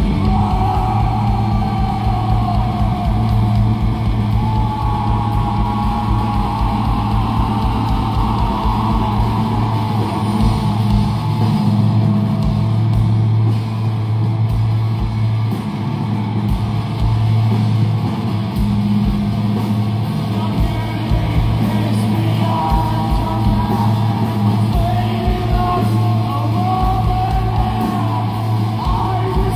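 A live rock band playing through the venue's PA, with electric guitars over a steady low bass note. A voice sings long, wavering notes over it in the first third and again near the end.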